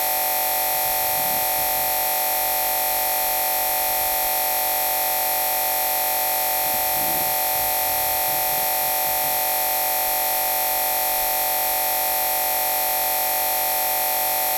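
Loud, unchanging static-like noise with a steady mid-pitched whine and a high hiss, standing in for the phone video's lost original audio: a corrupted recording.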